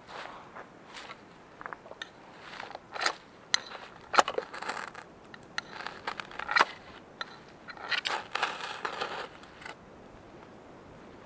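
Ferro rod struck again and again with the spine of a knife to throw sparks into a pile of wood shavings: a series of short, sharp scrapes at an uneven pace, stopping near the end.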